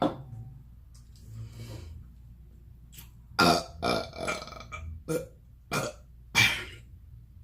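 A person burping: a long, loud burp about three and a half seconds in, a few shorter sounds after it, and another loud burp near the end.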